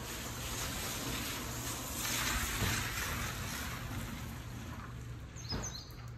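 Steady outdoor background noise with a low hum, swelling a little about two seconds in, and a few brief high chirps near the end.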